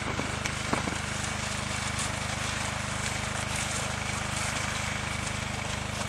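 Portable generator engine running steadily with an even hum. A few soft knocks from the pony's hooves come in the first second.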